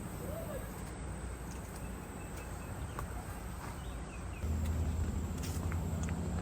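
Outdoor trail ambience: a steady low rumble on the microphone that gets louder about four seconds in, with a few faint bird chirps.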